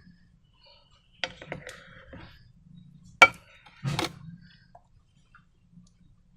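A few sharp clicks and knocks of small objects being handled, with light rustling between; the loudest, a single sharp crack, comes about three seconds in.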